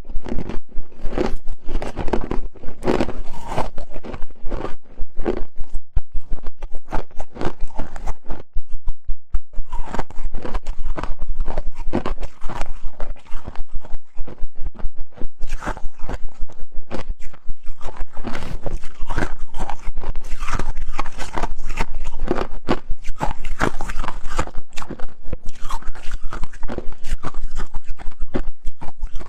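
Close-up crunching and chewing of powdery freezer frost and ice, a dense run of crisp crunches that hardly pauses.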